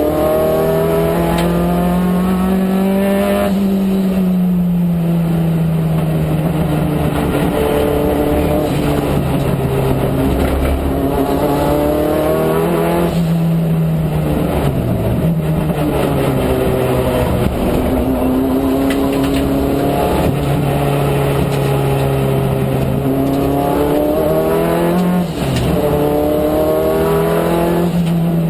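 Turbocharged Peugeot 205 GTi race car engine running hard on 7 psi of boost, heard from inside the cabin. The revs climb and then drop sharply several times through the lap.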